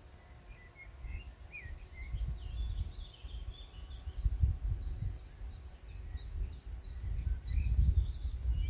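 Small birds chirping and twittering in quick, short calls, over uneven low rumbling gusts of wind on the microphone that grow louder near the end.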